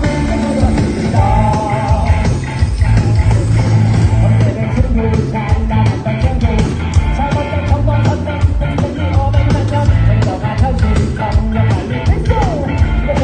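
Music: a rock song with singing over a steady drum beat and bass.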